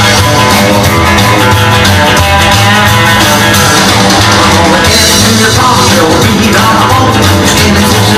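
A rock and roll record playing loudly and steadily, with a singer over guitar and drums.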